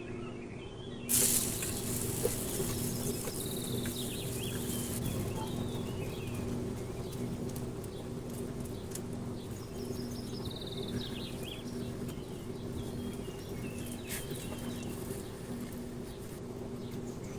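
Outdoor ambience: birds chirping now and then over a steady low hum and hiss. A short, loud burst of hiss starts about a second in and fades over the next few seconds.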